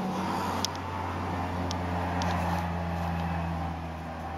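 A steady low machine hum, with a few faint short clicks in the first half.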